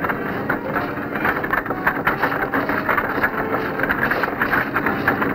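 Railway icing machine at work re-icing refrigerator cars: a dense, steady mechanical clatter and rumble with many small knocks.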